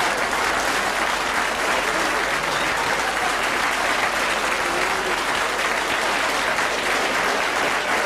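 Studio audience applauding.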